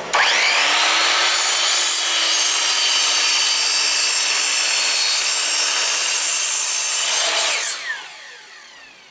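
AEG electric drop saw (mitre saw) starts with a rising whine and cuts down through a treated pine sleeper for about seven seconds. Near the end the trigger is released and the blade spins down with a falling whine.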